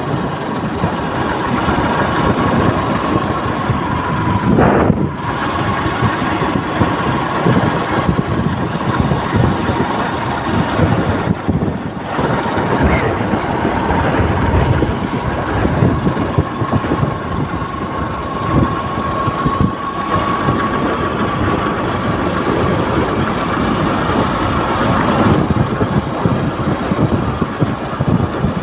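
An engine running steadily, with a thin steady whine over a dense rattling noise.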